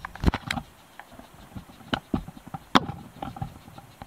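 Irregular clicks and knocks, a few of them sharp and loud, typical of a camera being handled and bumped inside a wooden hunting blind.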